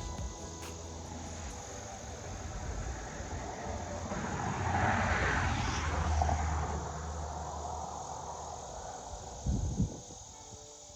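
Insects chirring steadily while a distant engine passes, swelling to its loudest midway and then fading. A couple of brief low bumps near the end.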